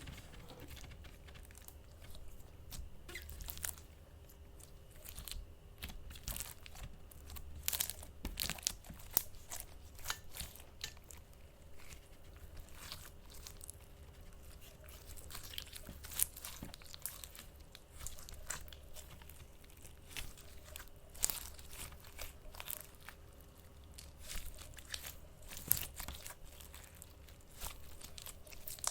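Ink slime being worked by hand, giving a run of irregular small clicks and pops.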